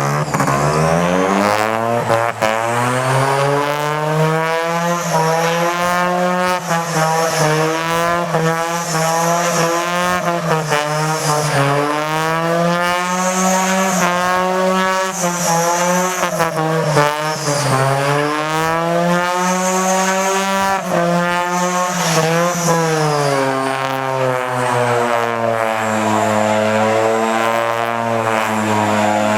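Mazda rotary engine revving up and down over and over, its pitch rising and falling every couple of seconds, then settling lower and steadier near the end.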